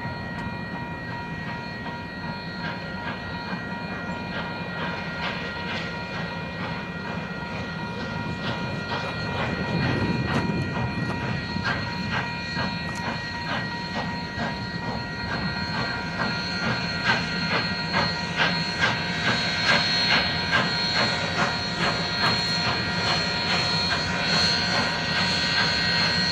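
Union Pacific 844, a 4-8-4 steam locomotive, approaching under steam with the Shiloh Limited excursion cars. Its exhaust beats grow louder and more distinct as it nears, over a steady hiss.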